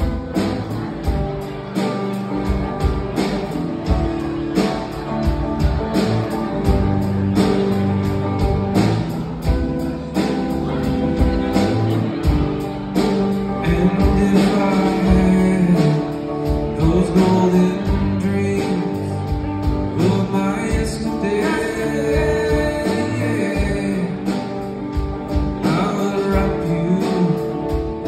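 Live rock band playing: male lead vocals over electric guitar, bass guitar and drums keeping a steady beat, the singing strongest in the second half.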